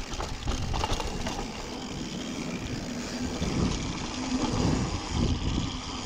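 Mountain bike rolling down a dirt trail: tyres running over the ground with a steady rumble, and the bike rattling and knocking over bumps, most sharply about half a second to a second in.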